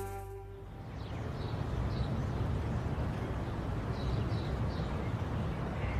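The song's last note dies away in the first second. Then comes outdoor ambience: a steady low rumble, with short faint bird chirps now and then.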